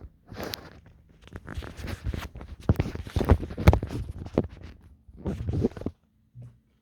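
Irregular clicks, knocks and rattles of parts being handled as an airsoft rifle is taken apart, busiest in the middle and stopping shortly before the end.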